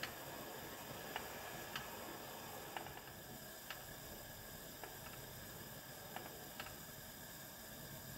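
Silicone spatula stirring sugar and water in a stainless steel saucepan to dissolve the sugar for syrup, with light, irregular ticks against the pan about once a second over a faint steady hiss.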